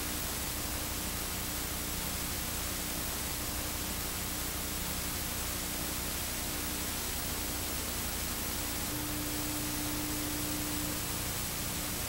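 Steady hiss of analogue TV-style static, with a faint low hum underneath.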